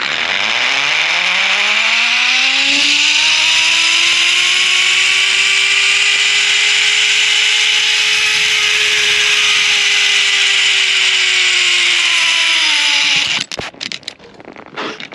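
Zip-line trolley pulleys running along a steel wire rope: a loud whine that climbs in pitch over the first few seconds as the rider gathers speed, holds, then sags slightly as it slows, over a rushing hiss. It stops abruptly near the end, followed by a few clicks of the trolley being handled at the landing platform.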